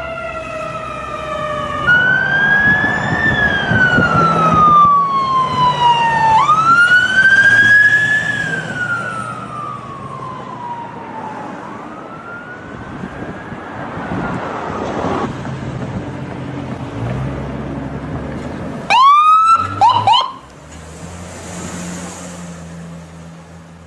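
Ambulance siren wailing, its pitch sweeping slowly up and down about every four to five seconds. It fades after about ten seconds. Near the end come a few quick, short yelps, over a steady low engine hum.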